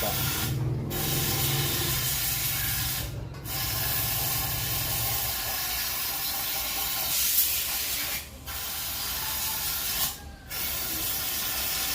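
Long stretches of hissing spray, as from compressed air or an aerosol cleaner, broken by short pauses about four times.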